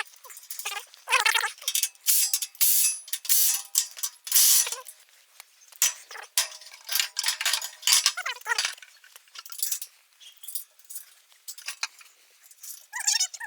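Irregular metal clinks and clanks of tools and steel machine parts being handled and fitted together.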